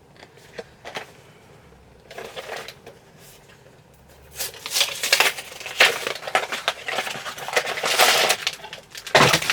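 Blind-box toy packaging being torn open and crinkled by hand: a few faint handling ticks, then from about halfway through a dense run of crackling and rustling.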